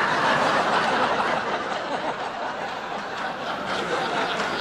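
A large audience laughing together, swelling up at the start and then holding steady.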